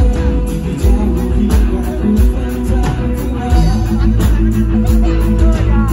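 Live pop-rock band playing through a PA system: a steady drum beat, bass and electric guitar, with a male voice singing, clearest near the end.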